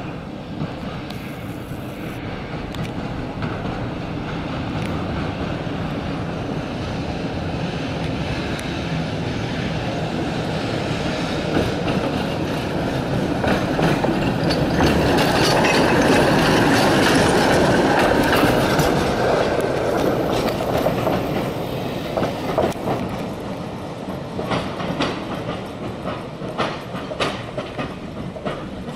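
A KTM tram approaches, growing louder to a peak as it passes close by. It then rolls on slowly with its wheels clacking and knocking over the rail joints and points, in a run of sharp clacks near the end.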